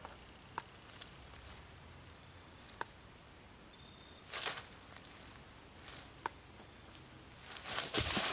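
Dry leaves rustling and crunching under a person's body as he lunges and falls forward onto the leaf-covered ground, loudest near the end. Before that there are only a few faint clicks and one short rustle about four seconds in.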